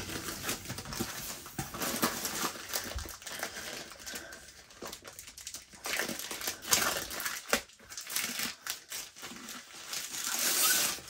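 Plastic wrapping crinkling and rustling in irregular bursts as a rolled diamond painting canvas in its plastic sleeve is handled, louder near the end.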